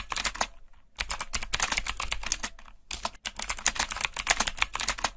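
Computer keyboard typing sound effect: rapid key clicks in quick runs, with brief pauses about a second in and about three seconds in.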